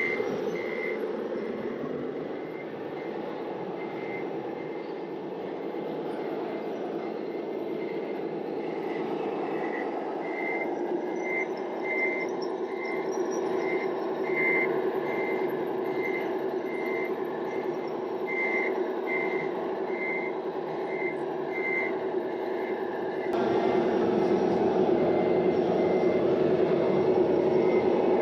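Reversing beeper of a radio-controlled model truck, evenly repeated high beeps over the steady whine of its running drive. About three quarters of the way through the sound gets louder and fuller, and the beeping carries on.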